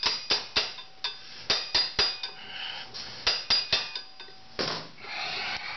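Hammer tapping an Allen key into the heat-shrunk, rounded-out head of a Loctited brake-disc bolt, about ten sharp metallic taps with a short ring, in two quick bursts. A brief rasping noise near the end.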